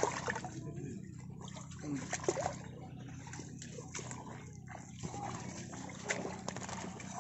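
Splashing and sloshing of shallow muddy water around a mud-stuck Powertrac tractor, over a steady low hum from the tractor's diesel engine idling, with scattered small clicks and knocks.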